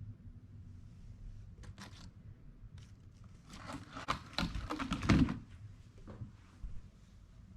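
Hands handling plants and containers: scattered clicks and rustling, with a denser run of knocks, rustles and a couple of low thumps about four to five seconds in.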